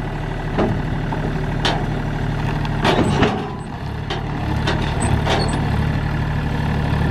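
Mini excavator's diesel engine running steadily, with several sharp metal clanks as the machine is unloaded off a trailer.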